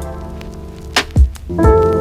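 Calm background music with sustained keyboard-like notes and a soft beat, with low drum hits that drop in pitch about a second in and again near the end.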